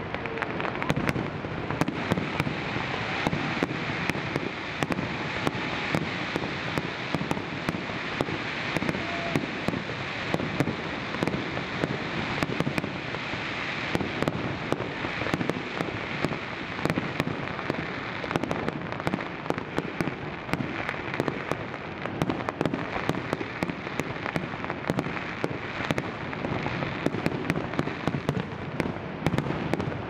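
Fireworks going off: a continuous run of sharp bangs and crackles, often several a second, over a steady rushing noise.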